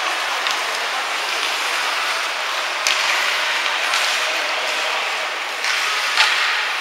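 Ice hockey game on a rink: a steady hiss of skates on the ice in a large hall, broken by a few sharp knocks, the loudest about six seconds in.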